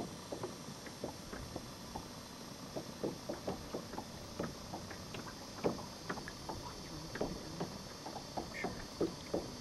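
Small waves lapping against the hull of a pontoon boat: irregular light slaps and knocks, a few a second, over a steady faint hiss.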